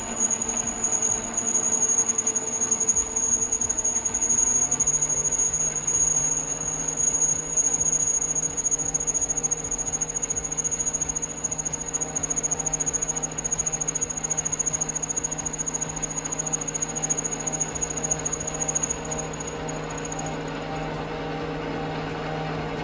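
Bernardo mini metal lathe cutting metal: motor and spindle running with a steady high whine over the rough sound of the cut. Near the end the whine and cutting stop and the lathe runs on more quietly.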